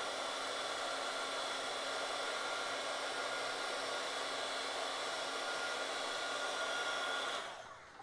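Corded electric heat gun running steadily, blowing hot air to shrink heat-shrink tubing over a soldered wire joint. It is a steady rush of air with a faint fan whine, and it is switched off near the end.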